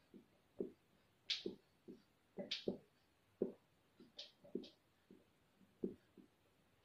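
Marker pen writing on a whiteboard: faint, irregular taps and short scratchy strokes, about a dozen, with a few brief squeaks.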